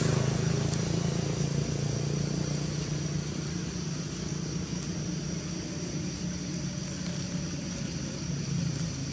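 A motor vehicle's engine running steadily, a low hum that eases off a little over the first few seconds.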